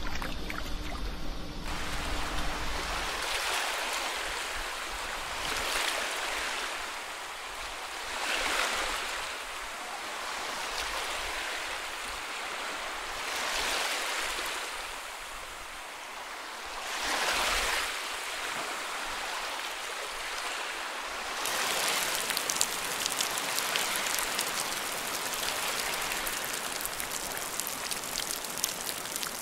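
Ocean surf: waves washing in and drawing back about every two to three seconds. About twenty seconds in it gives way to a steadier, brighter hiss of running water with fine pattering.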